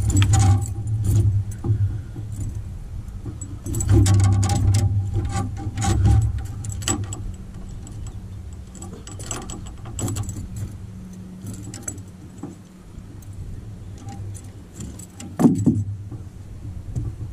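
Metal clicking and jingling of pliers and lure hooks as a chain pickerel is unhooked on a boat's carpeted deck, with dull thumps and knocks against the aluminum hull. The thumps are heaviest in the first second and again a few seconds in.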